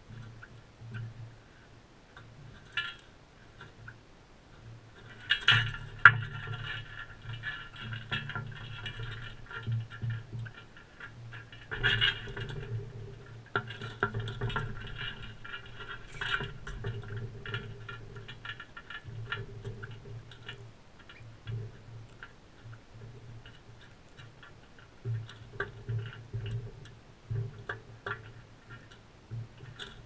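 Crimson rosellas cracking and shelling sunflower seeds at a feeder bowl: irregular clicks, ticks and scratches of beaks on husks and on the bowl, busiest through the middle stretch.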